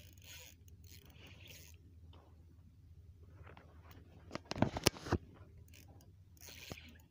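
Fishing rod and spinning reel being handled: faint scraping and rustling, then a quick cluster of sharp clicks and knocks a little past halfway, over a low steady hum.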